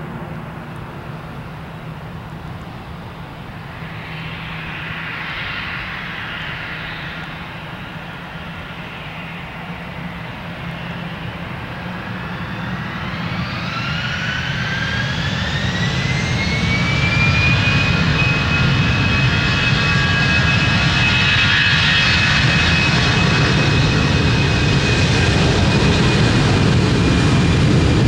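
Airbus A320 twin jet engines at low power, then spooling up to takeoff thrust. About twelve seconds in, a whine rises in pitch over some five seconds and grows much louder. It then holds as a steady high whine over a loud rumble while the airliner accelerates down the runway.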